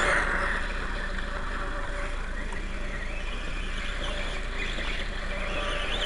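Radio-controlled dirt bike running over loose gravel: motor whine and tyre crunch, loudest at the start and dropping off about half a second in as it moves away, then faint and steady.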